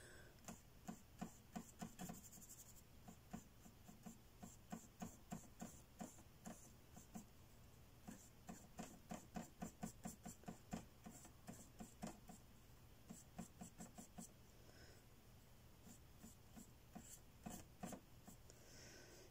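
Small paintbrush dabbing and stroking acrylic paint onto the painting surface: a run of short, quiet taps, about two or three a second, with a brief pause about three quarters of the way through.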